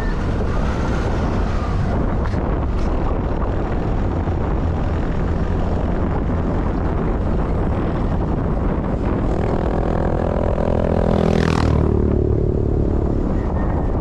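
Steady low wind rumble. A motor vehicle's engine grows louder from about two-thirds of the way in and goes by near the end, its pitch dropping as it passes.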